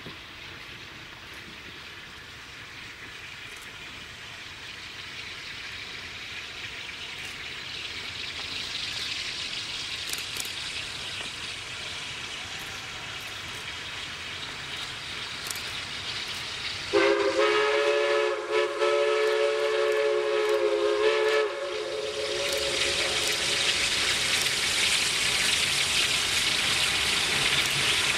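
An approaching excursion train, its running noise growing steadily louder, sounds one long chord-like whistle blast of about five seconds, starting abruptly a little past halfway.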